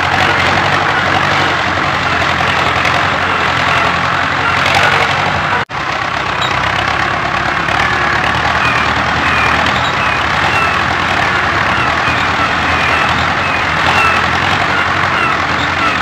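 Dubbed engine sound of a heavy vehicle running steadily, with a low hum under a dense rumble and faint short chirps above it. It cuts out for an instant about six seconds in.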